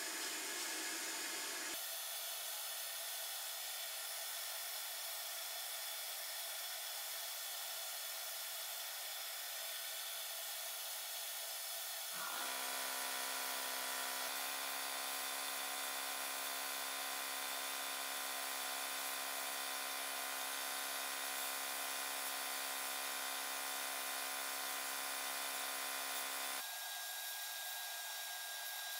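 Glass bead blasting in a blast cabinet: a steady hiss of compressed air and media from the nozzle against the steel pistol slide. A humming tone joins the hiss about twelve seconds in and drops away near the end.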